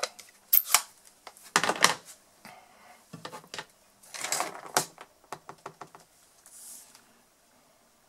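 Plastic ink-pad case and clear acrylic stamp block clicking and tapping as a rubber stamp is inked on the pad. There are several clusters of sharp clicks and taps, loudest near two seconds and near four and a half seconds, dying away after about six seconds.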